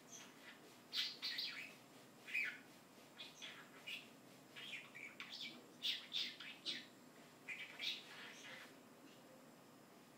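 Pet talking bird chirping and chattering in short, quick calls at irregular intervals, dropping off near the end.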